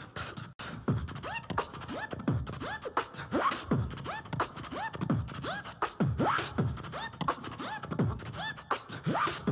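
Vocal beatbox beat: a steady rhythmic loop of deep falling kick sounds with rising, scratch-like chirps between them.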